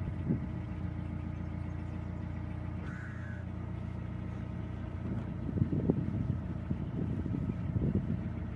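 Narrowboat's diesel engine running steadily under way, with a short bird call about three seconds in and a louder, uneven stretch of low sound from about five seconds in.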